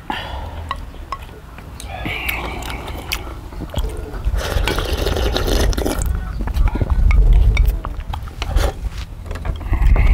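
Eating sounds at a table: noodle-soup broth slurped from a bowl, with chopsticks and spoons clicking against bowls and chewing. The slurping is loudest about four to six seconds in.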